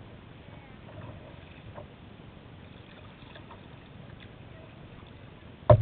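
Kayak and canoe moving on open river water: a steady wash of water and wind with faint small splashes of paddling. At the very end, a sudden loud noise cuts in.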